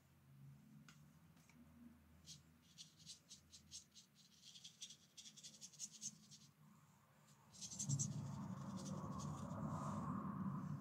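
Fine watercolour brush dabbing and stroking on watercolour paper: faint, quick, scratchy strokes. About eight seconds in, a louder steady rushing noise starts and keeps on.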